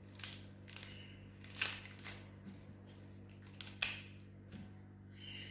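Dry, papery red onion skin being peeled off by hand: scattered short crackles and tearing sounds, over a faint steady low hum.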